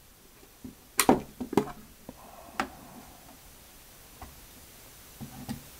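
Sharp clicks and clacks of an Agfa Billy Clack 120 folding camera's back latch being released and the back cover swung open. The loudest clicks come about a second in, with a few softer ones near the end.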